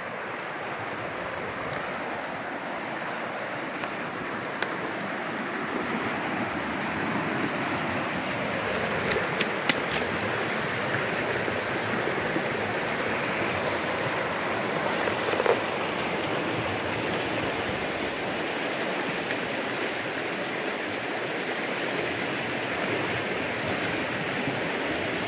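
Steady rush of running water from a stream or rapids, growing slightly louder, with a few sharp knocks about ten and fifteen seconds in.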